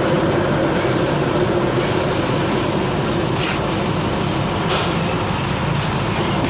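Steady mechanical hum with an even low drone, and two brief faint hisses about three and a half and five seconds in.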